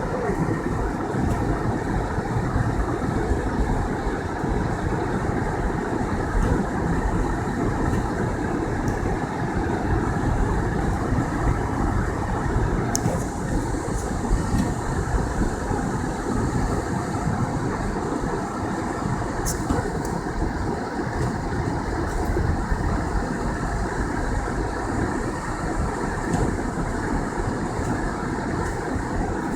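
Car driving on a snowy road: a steady rumble of engine and tyre noise, with two brief sharp ticks about halfway through.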